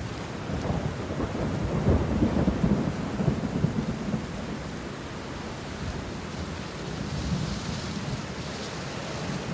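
Rain falling with a low rolling rumble of thunder that swells about two seconds in and fades by about four seconds, leaving steady rain.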